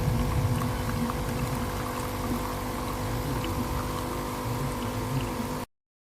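Nescafé Dolce Gusto Genio S capsule coffee machine's pump running steadily as it brews, with a hum and trickling liquid; it cuts off suddenly near the end.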